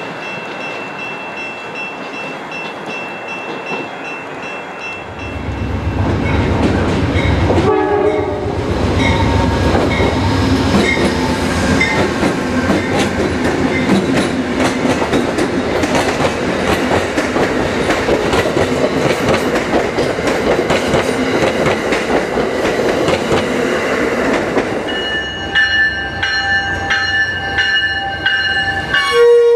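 Passenger trains passing: a grade-crossing signal rings with steady tones, then a diesel locomotive's deep rumble builds as it nears. After that, train cars run by with steady wheel noise and many rail clicks, and near the end a steady ringing signal sounds again over the passing train.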